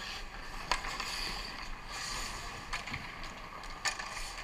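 Ice hockey play in a rink: a steady hiss of skate blades on the ice, broken three times by sharp clacks of stick and puck.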